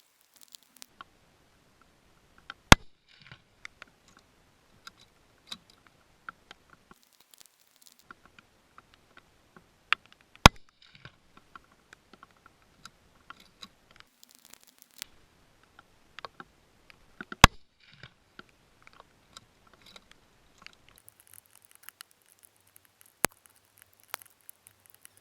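A .308 Ruger Precision Rifle firing four single shots about seven seconds apart, with softer metallic clicks and rattles of handling between them.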